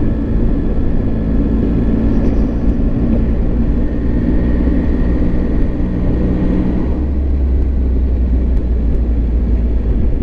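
Triumph Tiger 800 XRT's three-cylinder engine running steadily on the move, with wind rush over the microphone. The low rumble grows stronger about seven seconds in.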